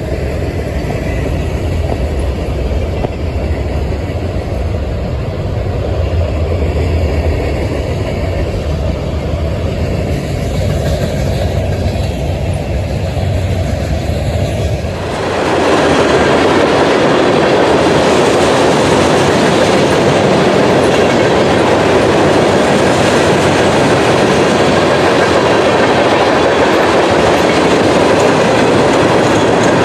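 Freight cars of a passing train rolling by at track speed, wheels clattering over the rails. About halfway through the sound turns louder and hissier and stays that way.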